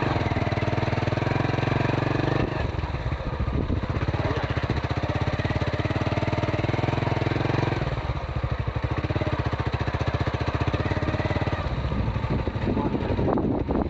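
Honda CB125 motorcycle engine running steadily, its note shifting slightly a couple of times and turning rougher near the end.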